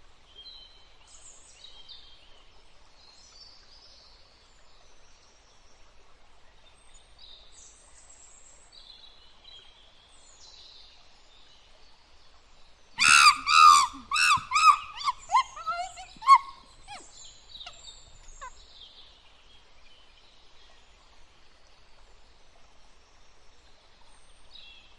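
Birds calling in rainforest ambience: faint scattered high chirps, then one loud series of rapid repeated calls about halfway through, about four a second at first, slowing and dropping in pitch over roughly five seconds.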